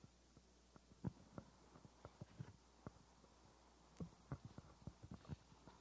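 Faint scattered clicks and knocks from a handheld wireless microphone being handled and passed from hand to hand, over a low steady hum.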